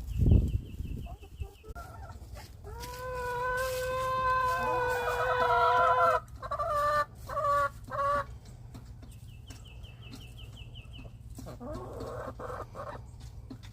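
Rooster crowing: one long held call of about three and a half seconds, broken off into a few short notes at the end, with chickens clucking softly around it. A high rapid trill sounds twice, and a low thump comes right at the start.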